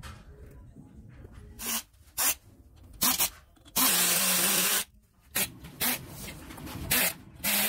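Screwdriver driving brass screws into the plastic arms of a ceiling fan's motor housing: a run of short, loud scraping bursts, with one longer burst of about a second near the middle.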